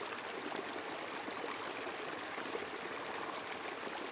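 Shallow stream running over rocks, a steady, even rush of water.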